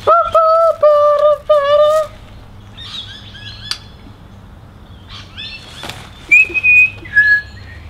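A child singing a few long, high held notes for about two seconds. Near the end come several short high whistled calls, the last two held steady and loud.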